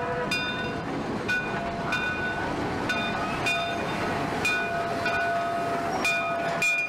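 Shay geared steam locomotive rolling slowly past at close range: irregular metallic clanks, each ringing on briefly, over a steady rumble, with a drawn-out squeal from wheels on rail through the middle.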